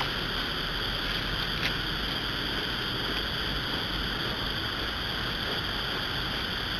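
Steady background hiss with faint, steady high-pitched tones, typical of a trail camera's microphone at night. There is one light tick about a second and a half in.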